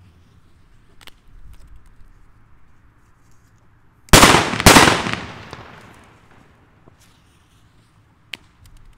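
Two loud bangs of Hua Liang Bonbridge Petard flash-powder firecrackers, about half a second apart, about four seconds in, with a ringing echo trailing off over the next second or two. A smaller sharp crack follows near the end.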